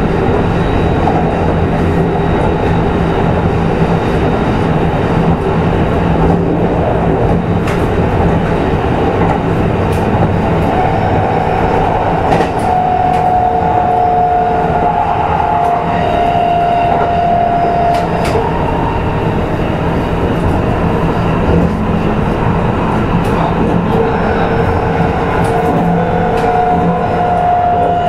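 Kintetsu 22000 series limited-express motor car running at speed, heard from inside the car: a steady rumble of wheels and running gear with light clicks of rail joints. A high whine comes in twice, for several seconds each time, in the middle and near the end.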